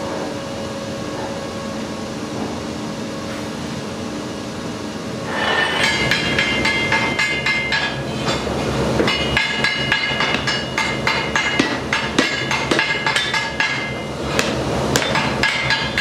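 Blacksmith's hand hammer striking hot steel on an anvil in rapid, light blows, the anvil ringing after each; the hammering starts about a third of the way in and pauses briefly near the end. Before it, only a steady hum.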